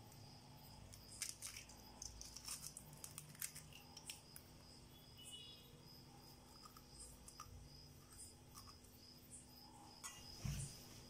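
Faint clicks and crackles of an egg being cracked and its shell pulled apart over a steel mixing bowl, with a soft knock near the end. Crickets chirp faintly and steadily behind it.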